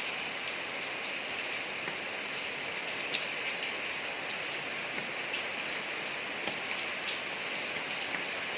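Steady rain falling on a street: an even hiss of rain with scattered sharper drop ticks.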